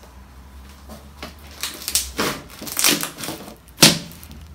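Glow-in-the-dark glue slime squeezed and worked in the hands, giving a run of irregular squishy clicks and little air-bubble pops that grow stronger, with the sharpest pop near the end.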